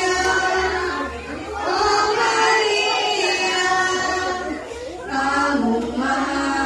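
Voices singing a slow devotional hymn with long held notes, breaking for breath about a second and a half in and again near five seconds.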